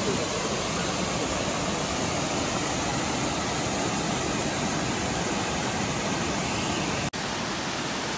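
Waterfall rushing, a steady roar of falling water, with a brief dropout about seven seconds in where the recording cuts to another take.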